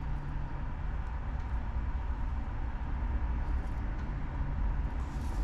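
A car engine idling, a steady low rumble with no separate events.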